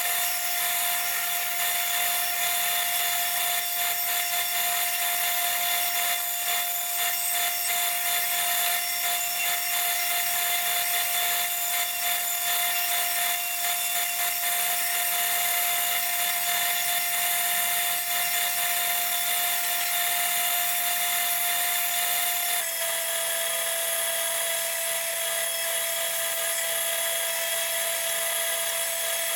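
Electric power tool running steadily with a high-pitched whine and a hiss. Its pitch steps down slightly and suddenly about 23 seconds in.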